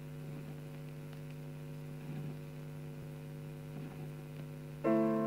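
Vinyl record playing on a turntable: a steady mains hum with a few faint surface clicks in the quiet groove, then near the end the music comes in with a sustained chord that slowly fades.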